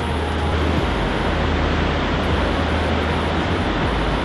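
Steady rushing roar of a large waterfall falling into a gorge, with a low steady hum underneath that drops in pitch about a second in.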